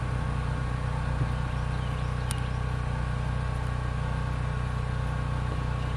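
Steady low machine hum with a few faint steady higher tones over it, and one faint click about two seconds in.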